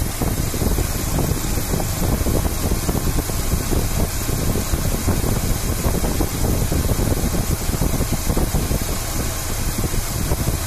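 Pickup truck engine idling steadily, heard close up at the open oil filler while an oil treatment is poured into the running engine.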